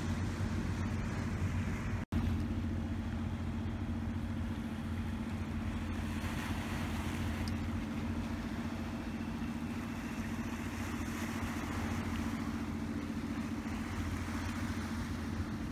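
Steady low engine drone with an even hiss of wind and small waves washing on the rocks. The sound cuts out for an instant about two seconds in.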